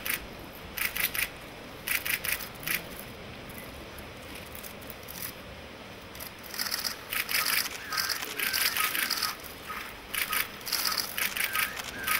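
Press photographers' camera shutters firing in rapid bursts: a few short bursts early on, then dense, overlapping clatter of many cameras from about six and a half seconds in.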